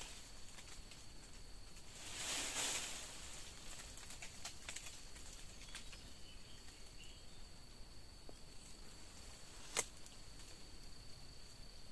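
Branches and leaves rustling faintly as sweet-leaf shoots are picked, with a louder rustle about two seconds in and a sharp snap near the end. A faint steady high tone runs underneath.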